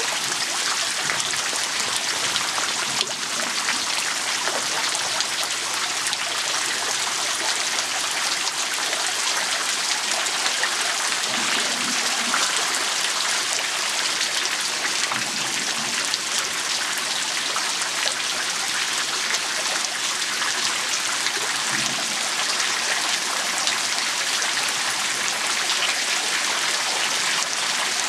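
Groundwater seeping out of a high coastal bank and dripping down in a steady patter of many drops, sounding like rain.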